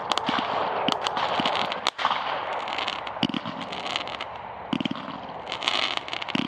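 Aerial fireworks bursting: a steady run of sharp bangs and crackling pops, with quick clusters of rapid pops from white crackling shells.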